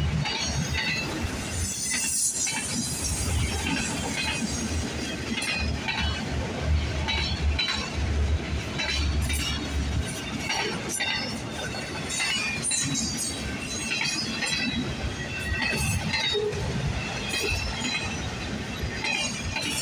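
Freight train of autorack cars rolling past: a steady rumble of wheels on rail with frequent clanks and rattles from the cars.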